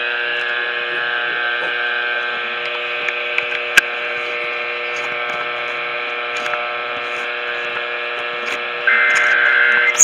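Weather radio giving a steady buzzing hum between alert messages. About nine seconds in, a one-second burst of the screeching digital header tones that open an Emergency Alert System message cuts in, signalling the start of the next alert.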